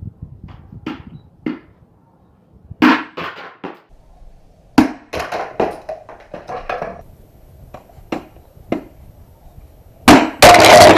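Small hammer striking a Steelbird SB-42 motorcycle helmet, a dozen or so sharp, irregular knocks with short pauses between them. Near the end a much louder sound with a held tone comes in.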